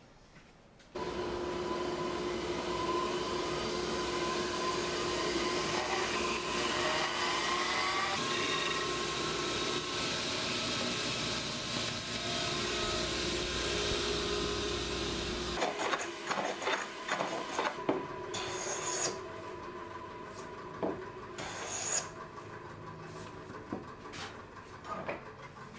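Bandsaw running and cutting a section off a wooden board, a steady sound with a held tone that starts about a second in and cuts off suddenly about halfway through. After that, scattered light knocks and clicks of wood pieces and tools handled on a workbench.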